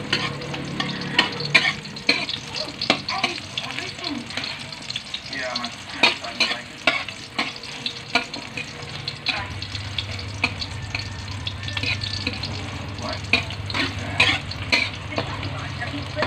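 Sliced onions frying in oil in a metal wok, a light sizzle, while a metal spatula stirs them, with frequent short clinks and scrapes of metal on the pan.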